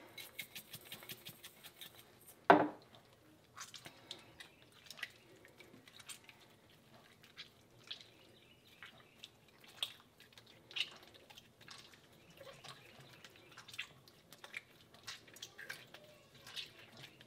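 Hot mozzarella curd being stretched and folded by hand over a pot of whey: faint wet squelches and whey dripping back into the pot as scattered small ticks, with one louder knock about two and a half seconds in.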